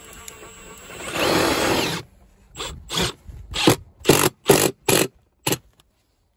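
Cordless drill-driver driving a long screw through a plastic outlet box into vinyl siding: one steady run of about a second, then about seven short trigger bursts as the screw is snugged down.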